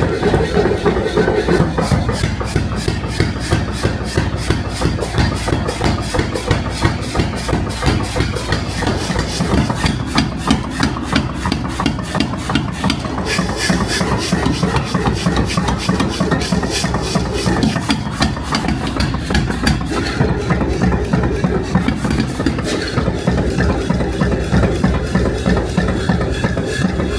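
Steel being worked in a knife-making shop: a continuous, rapid rasping rhythm of metal on metal, with no break.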